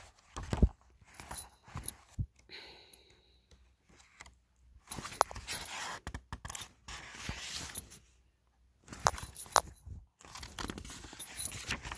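Paper pages of a book being turned and handled, rustling in several irregular short bursts with a few sharp clicks.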